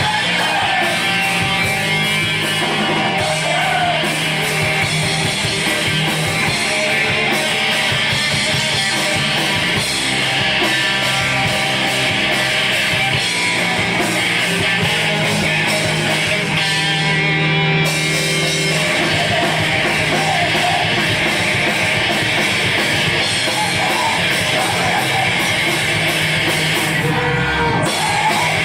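Live screamo/crust hardcore band playing at full volume: distorted electric guitars and drums, with yelled vocals.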